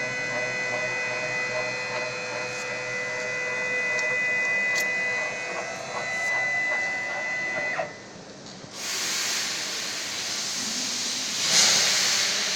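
Fiber laser marking machine giving a steady electronic whine made of several held pitches, which cuts off abruptly about eight seconds in. A loud, even hiss follows and swells briefly near the end.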